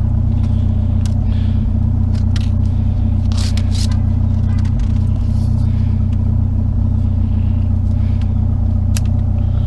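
Pickup truck engine idling steadily, with a few sharp metal clanks from scrap pieces being handled and loaded.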